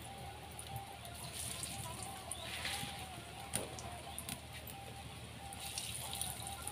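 Breaded potato croquettes frying in hot oil in a kadai: a steady sizzle with many small crackling pops, one louder pop about three and a half seconds in.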